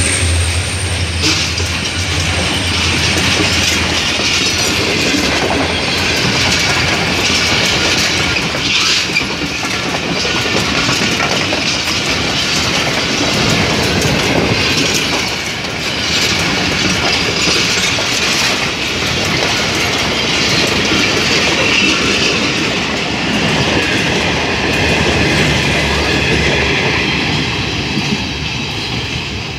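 Pakistan Railways passenger train's coaches passing close by at speed, wheels clattering over the rail joints, fading near the end as the train draws away.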